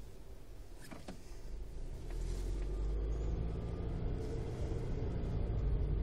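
Car engine and road rumble heard from inside the cabin. The car speeds up about two seconds in, and the rumble grows louder with a faint rising whine. There are a couple of light clicks about a second in.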